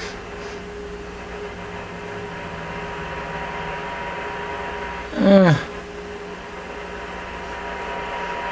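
Cobra 29 LTD Classic CB radio on receive through an external speaker: steady static with faint steady tones under it, as the set is checked for a receive problem. About five seconds in, a brief loud sound falling in pitch cuts through the static.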